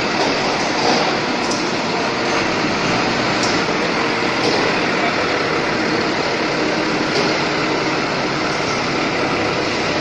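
A large forklift running close by as it carries scrap up to an open melting-furnace door, a steady dense machine din with a few faint clanks.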